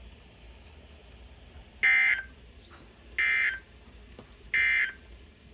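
Emergency Alert System end-of-message data tones: three short buzzy digital bursts, evenly spaced about a second and a half apart. They mark the end of the tornado warning broadcast.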